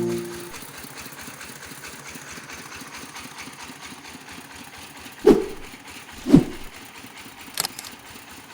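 Small genset-type engine of a portable rice-milling machine running steadily. Two loud thumps come about a second apart midway, and a couple of sharp clicks follow.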